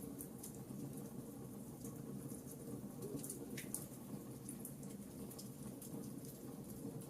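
Campfire of burning wood crackling: scattered sharp pops and snaps over a steady low rumble of the flames, with one bigger pop about three and a half seconds in.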